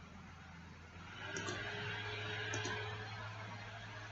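Faint computer mouse clicks, two quick double clicks about a second apart, over a steady low hum and a background hiss that grows louder about a second in.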